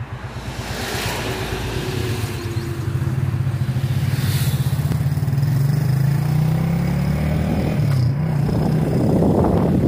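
Motorcycle engine idling with an even beat, then pulling away and accelerating, its pitch rising steadily over several seconds. A gear change comes about eight seconds in, and wind rushes over the microphone near the end.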